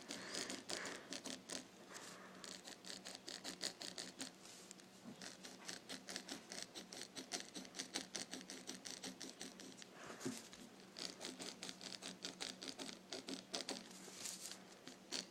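Mechanical pencil scratching on paper in many quick, repeated strokes, pressed down hard while drawing a shape.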